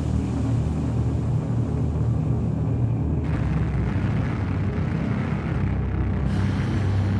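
Dark ambient background music: a steady low droning rumble, with a hissier layer coming in about three seconds in.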